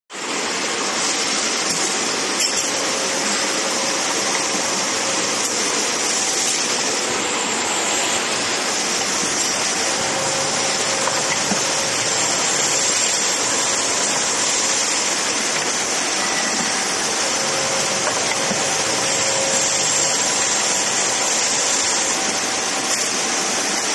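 Glass lid edge grinding machine running: grinding wheels working the edges of glass lids under coolant water, giving a steady hiss of motor, abrasion and water, with faint whining tones coming and going.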